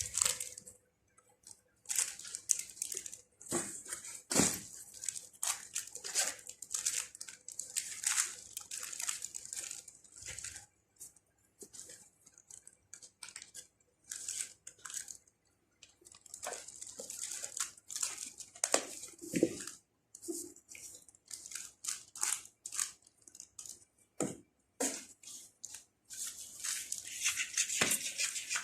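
A cat eating, with irregular short chewing and licking sounds broken by brief pauses.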